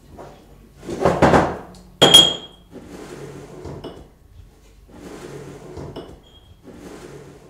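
Dishes and kitchenware clattering at a kitchen counter: two loud clatters about a second apart, the second with a short ringing clink, then quieter handling sounds.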